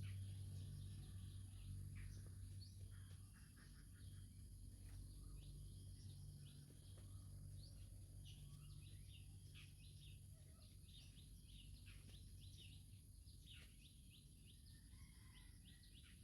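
Faint birds chirping, many short calls one after another, over a low steady hum that eases after the first few seconds.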